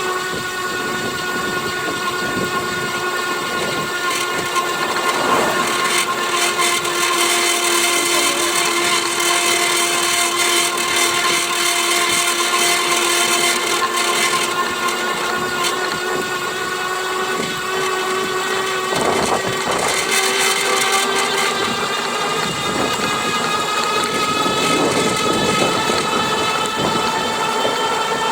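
GoCruiser's electric motor running steadily under load with a whine and a rattling noise; the owner notices the rattle in the 670 to 725 watt range. The whine's pitch creeps up slightly near the end.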